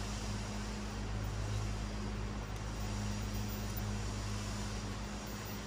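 Steady low hum over an even background hiss, like a running fan or kitchen appliance, unchanging throughout.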